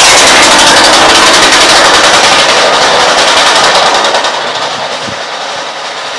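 Taylor 50cc two-stroke engine on a 1/5-scale RC vehicle running loud with a rapid firing rattle, freshly started and warming up. About four seconds in it eases back to a noticeably quieter run.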